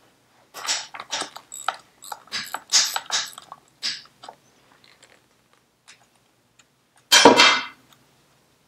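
A ring spanner clicking and scraping on the primary drive gear nut of a Vespa PX engine as the nut is worked loose: a run of short metallic clicks. Just after seven seconds in comes one louder metallic clatter, lasting under a second.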